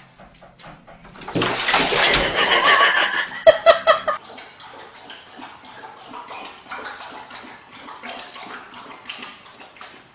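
Water running loudly into a bathtub for about three seconds, with a few sharp knocks near the end, then cutting off suddenly. After that come faint scattered clicks and rustling.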